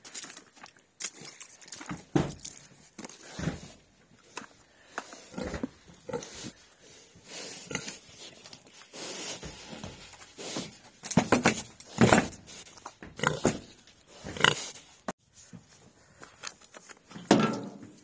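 Pigs grunting close by in short, irregular bursts, getting louder in the second half.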